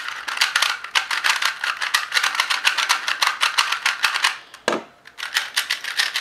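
Plastic 3x3 speedcube being turned rapidly, its layers clacking in a fast, dense run of clicks. The turning stops briefly a little before the five-second mark, with a single soft thud, then picks up again.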